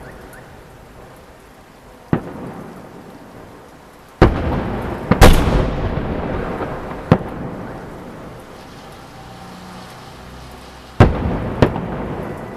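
Fireworks salute shells bursting overhead: about seven heavy booms at irregular intervals, two pairs coming in quick succession, each followed by a long rolling echo that dies away.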